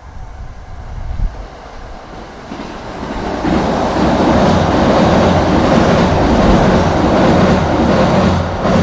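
Kintetsu electric train passing close by, its wheels rumbling and clattering over the rails. It builds to full loudness about three seconds in, holds, and starts to fade right at the end. The level-crossing bell rings faintly underneath.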